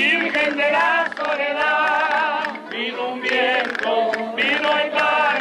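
A man singing a Canarian parranda folk song in long, wavering held phrases, with guitar strumming behind.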